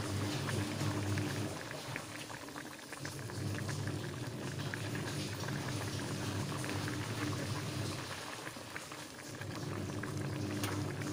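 Coconut-milk fish curry bubbling at a steady boil in a pan, a continuous popping and bubbling, over a steady low hum.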